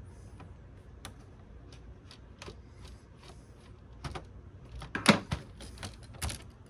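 Light, irregular clicks and ticks of small screws being turned out of a circuit board by hand and set down on the bench, with a few louder clacks about four to five seconds in and another near the end.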